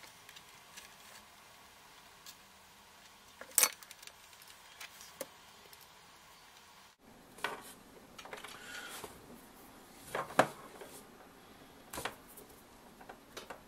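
Scattered light clicks and taps of small metal tools and parts being handled at a workbench, sharpest about three and a half seconds in and again about ten seconds in.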